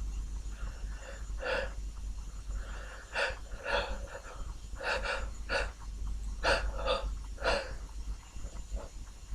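A person sniffling through the nose: a run of short, sharp sniffs, several in quick pairs.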